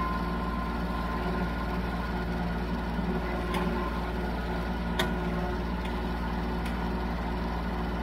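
Kubota L3901 compact tractor's three-cylinder diesel engine running steadily. A sharp click sounds about five seconds in, with two fainter clicks around it.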